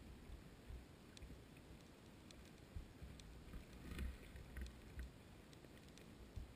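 Faint underwater ambience heard through a GoPro's waterproof housing on the sea floor: a low rumble with scattered sharp clicks and ticks, more of them about four seconds in.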